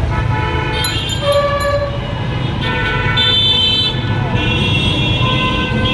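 Several vehicle horns honking at different pitches, long overlapping blasts one after another, over the steady rumble of road traffic.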